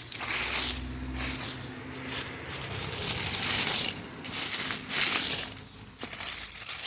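Leafy vines rustling and crunching as they are pulled and torn out by hand, in repeated bursts.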